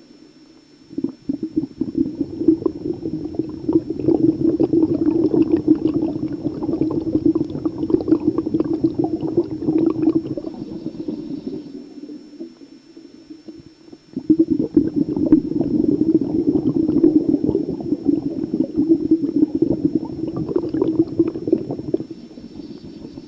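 Bubbling heard underwater, most likely a scuba diver's exhaled air streaming from the regulator. It comes in two long bouts of about ten seconds each, with a short pause between them.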